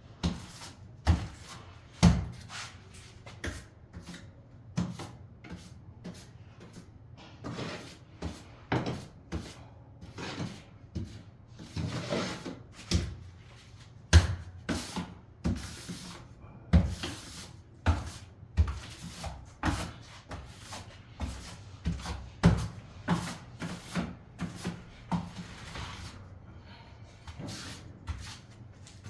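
Irregular knocks and clatter from hand work on a tiling job, about one or two a second, some in quick clusters, with scraping between them.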